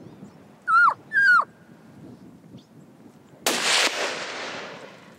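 Two short elk cow-call mews, each sliding down steeply in pitch, followed about three and a half seconds in by a single rifle shot whose report rolls away in echo for over a second.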